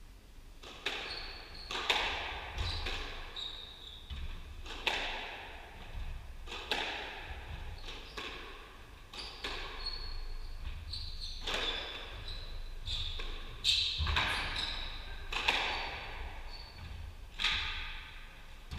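A squash rally: the ball is struck by rackets and smacks off the walls every second or two, each hit ringing in the hall, with short high squeaks of shoes on the wooden court floor between shots.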